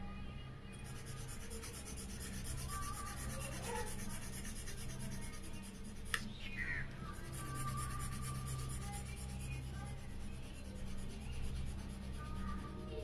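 Charcoal pencil scribbling hatching strokes on drawing paper, a continuous dry scratching and rubbing over a steady low hum. A single sharp click about six seconds in.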